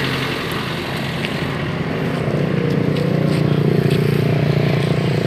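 A motor engine running steadily, its hum growing louder about two seconds in, with a few faint clicks.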